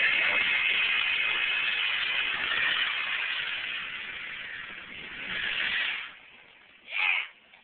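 Chevrolet Monte Carlo's rear tires spinning on concrete in a smoky burnout, squealing loudly. The squeal slowly fades, swells briefly once more, then stops about six seconds in.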